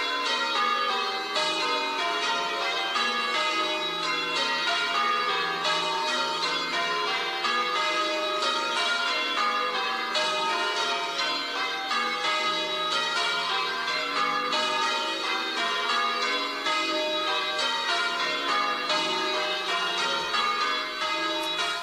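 Church bells pealing, many bells struck one after another in quick succession so that their ringing overlaps; it stops abruptly at the end.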